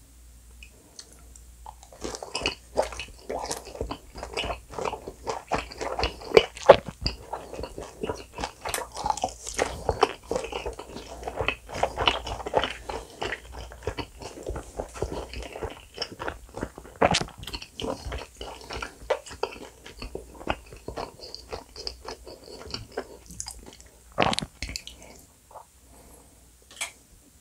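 Close-miked crunchy chewing of a deep-fried dumpling (tangsu mandu), a dense run of crisp crackles. It starts about two seconds in and thins out near the end.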